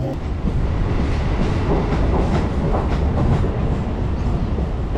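Electric suburban train running at speed, heard from the open doorway: a steady rumble with its wheels clattering over rail joints.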